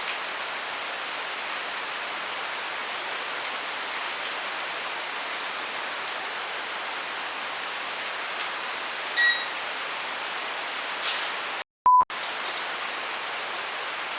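Steady hiss of recording noise in a quiet room. About 9 seconds in there is one short electronic beep. Near the end the audio cuts out briefly, with a short single-tone beep inside the gap.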